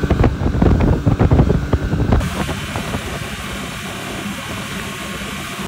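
Boat running at speed behind a Yamaha 225 V6 four-stroke outboard, the engine's drone mixed with the rush of the wake. Heavy wind buffeting on the microphone dominates for about the first two seconds, then gives way to a steadier rush.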